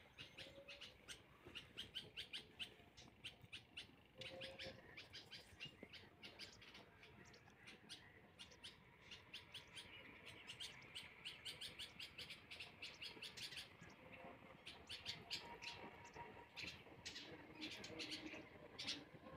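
Faint chirping of small birds: a busy run of quick, high chirps, several a second.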